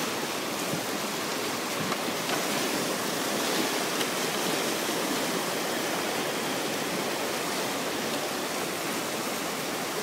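Whitewater river rapids rushing steadily, a continuous wash of churning water.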